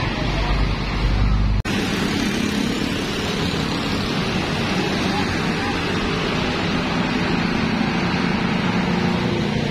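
Diesel intercity bus engines and road traffic. A deep rumble from a bus passing close cuts off abruptly about one and a half seconds in. Then comes a steady engine drone as a second coach drives up and past close by.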